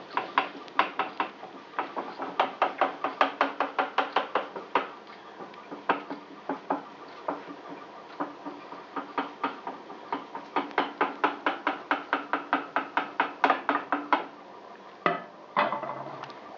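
A kitchen utensil clinking against ringing cookware in fast runs, about four strikes a second, with short pauses. Two separate louder knocks come near the end.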